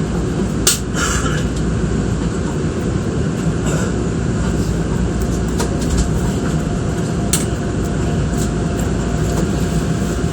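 Steady rumble inside an electric commuter train car, with a few sharp clicks about a second in and again later.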